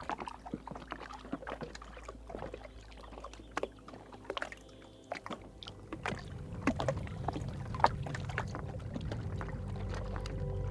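Small waves lapping and slapping against a canoe's hull and the shore in short, irregular knocks. A low steady tone builds near the end.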